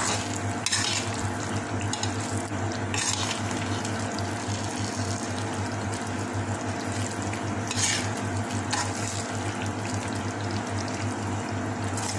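Thick caramelized sugar syrup bubbling and sizzling in an aluminium pan while a metal spoon stirs glutinous rice balls through it. The spoon scrapes against the pan a few times, over a steady low hum.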